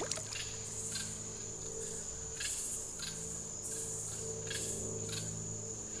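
Night insects: a steady high-pitched drone with short chirps repeating about twice a second.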